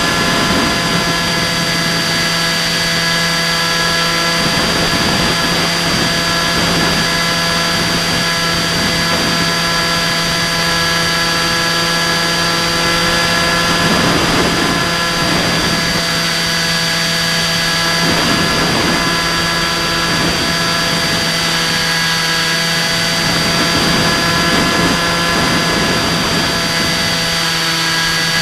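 Bixler 2 RC foam plane's electric pusher motor and propeller running at a steady pitch, heard from the on-board camera, with wind rushing over it that swells now and then.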